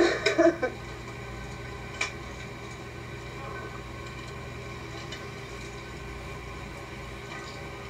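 Steady background hum and hiss, with a short voice-like sound at the start and a single sharp click about two seconds in.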